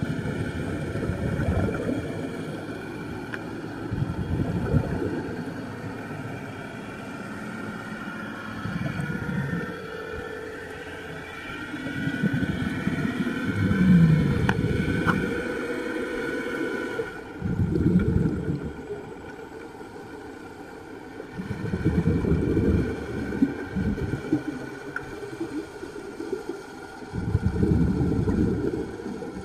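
Underwater sound from a scuba diver's regulator: exhaled bubbles rumble in bursts every four or five seconds, the longest lasting several seconds, over a faint steady whine.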